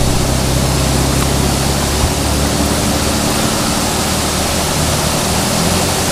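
Steady rumble and hiss of a moving truck heard from inside its freight trailer: road noise over a low engine drone, the deepest part of which eases about two seconds in.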